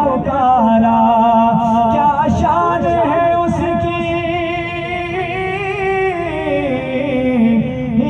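A male naat reciter singing unaccompanied, holding long wavering notes that glide up and down in a melismatic line.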